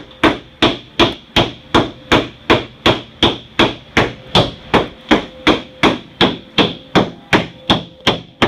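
Steady, evenly paced hammer blows on car sheet metal, about two and a half strikes a second, each with a metallic ring. The metal is being beaten out to make clearance for a larger aftermarket radiator.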